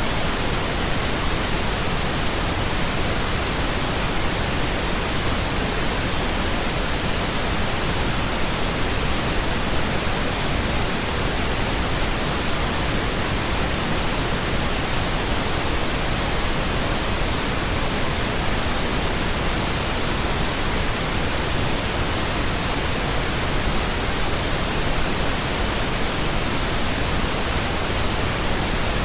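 Steady pink noise: an even, unbroken hiss spread across all pitches, unchanging throughout.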